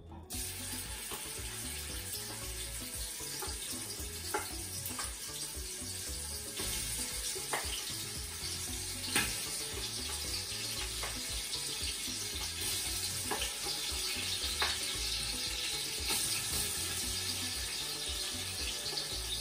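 Marinated goat meat sizzling in hot vegetable oil as it is spooned into the pot to brown: a steady frying hiss that starts suddenly at the outset and grows louder partway through. A wooden spoon clicks against the bowl and pot several times.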